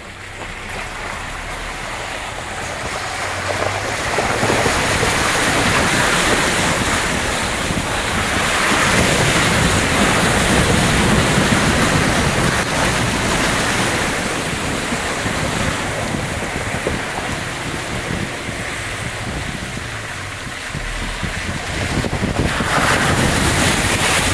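Water rushing and splashing against a Mitsubishi L200 pickup as it wades through a flooded track, heard from inside the cab. The wash builds about four seconds in and surges again near the end, when water sprays over the windscreen.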